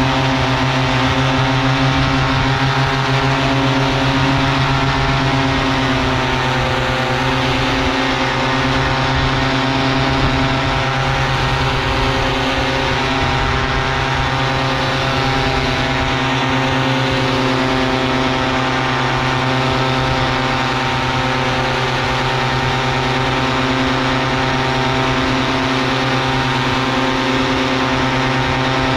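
Paramotor engine and propeller running steadily at cruise power in flight.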